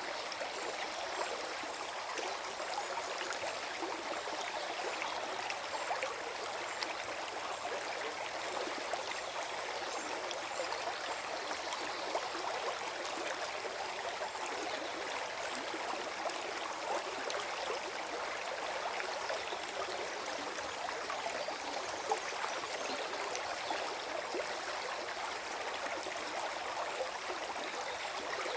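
Small forest stream gurgling and burbling steadily over stones, a dense flicker of small splashes without pause.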